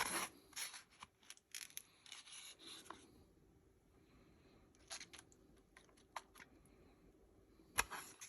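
Quiet, scattered scrapes, taps and clicks of food containers and utensils being handled while toppings are put on nachos, with a sharper click at the start and another shortly before the end.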